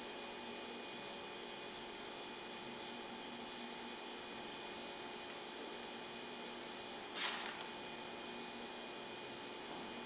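Steady electrical hum with a faint hiss, made up of several fixed tones, and one brief soft sound about seven seconds in.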